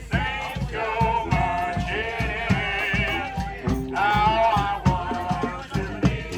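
Street brass band playing: held horn notes with vibrato over a steady drum beat.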